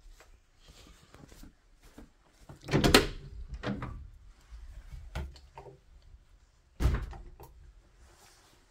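A wooden interior closet door opened by its knob. The latch and door clatter loudly about three seconds in, a few lighter knocks follow, and there is a sharp thump about seven seconds in.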